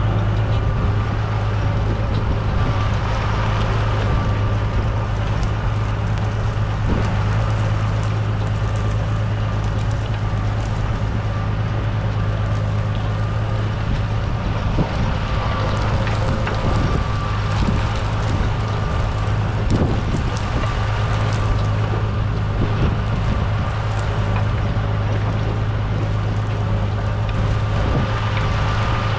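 Claas Arion 650's 6.8-litre six-cylinder diesel running steadily under load while pulling a Lemken five-furrow reversible plough, a constant drone with a faint high whine. Scattered clicks and knocks from the plough working the soil, and some wind noise on the microphone.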